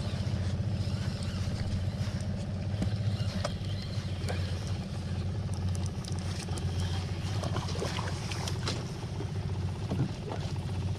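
Small outboard motor running at a steady idle, a low even hum, with a few light clicks over it.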